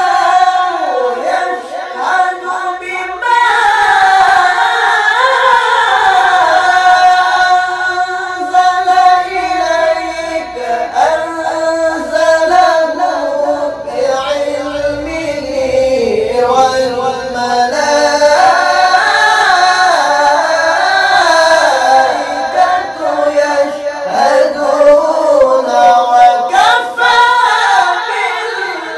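Two male voices reciting the Quran together in the melodic qori (tilawah) style, holding long notes that wind up and down in ornamented runs.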